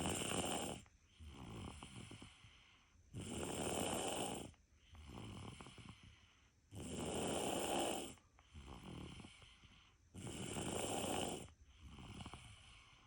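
Loud snoring in a steady rhythm: four big snores about three and a half seconds apart, with a softer breath between each.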